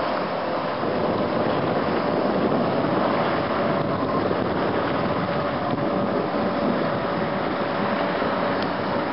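British Anzani Unitwin 15 hp two-stroke twin outboard running steadily at speed, under a steady hiss of wind and choppy water.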